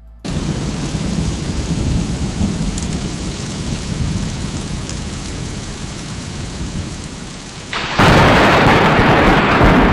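AI-generated sound effect from Meta's Audiobox of heavy rain with a low rumble of thunder. About eight seconds in, a sudden, much louder crash of thunder breaks in.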